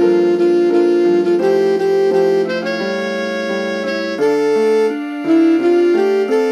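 Computer playback from Finale notation software of an SATB choral arrangement with piano: synthesized tones sound the four voice parts, with the alto line brought forward as a rehearsal track, over piano accompaniment. The held notes change every half second or so.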